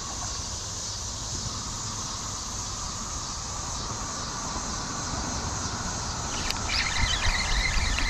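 Riverside ambience: a steady hiss of insects and distant traffic. From about six and a half seconds in, a bird sings a run of quick, warbling notes, and near the end there is low rumbling as the rod and spinning reel are handled.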